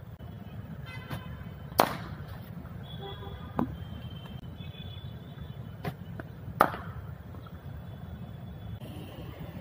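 Cricket bat striking the ball in the nets: two loud sharp cracks about five seconds apart, with a few lighter knocks between. A steady low traffic rumble runs underneath, with faint distant horn toots.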